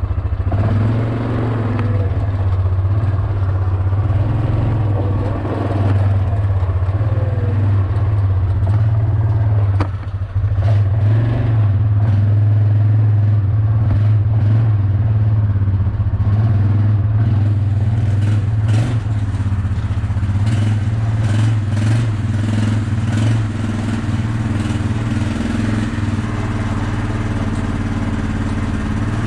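ATV (quad) engine running at low speed while the quad is driven and maneuvered, a steady hum that grows a little stronger in the middle, with scattered clicks and knocks through the middle and later part.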